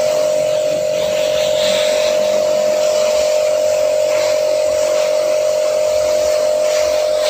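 Mollar HPW500 500-watt pressure washer running with a steady buzzing hum, its water jet hissing from the spray nozzle.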